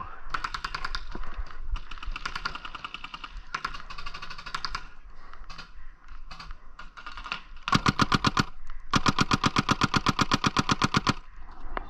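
Paintball markers firing rapid strings of shots, about a dozen a second. Fainter strings come in the first half. Near the end there are two loud close bursts, a short one and then one of about two seconds.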